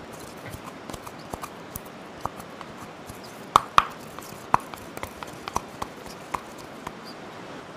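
Pestle knocking and grinding in a small hand-held mortar: irregular clicks and taps, with a pair of louder knocks about three and a half seconds in and another a second later, over a faint steady hiss.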